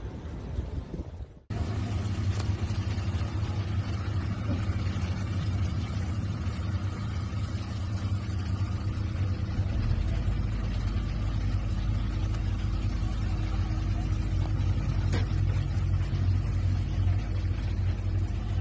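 Wind rumbling on the microphone, cut off suddenly about a second and a half in. Then a loud, steady, low engine-like drone with a hum, which deepens about ten seconds in.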